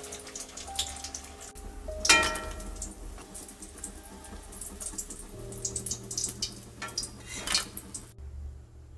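Hot oil sizzling and crackling around battered chicken rolls deep-frying in a kadai, with scattered pops throughout. A sharp ringing clank about two seconds in.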